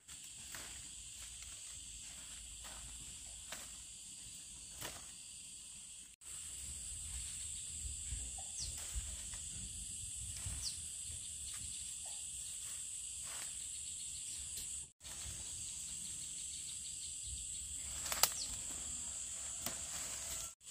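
Steady high-pitched drone of insects in the countryside, with low wind rumble on the microphone. Scattered light clicks and rustles and a few short bird chirps break in, the sharpest click near the end.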